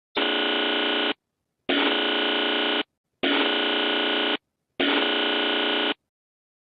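Harsh electronic alert buzzer sounding four times, each burst about a second long with short gaps between.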